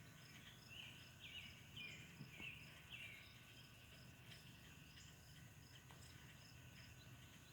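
Faint outdoor ambience: a high insect chirp repeating in even pulses, with about five short chirps in the first three seconds.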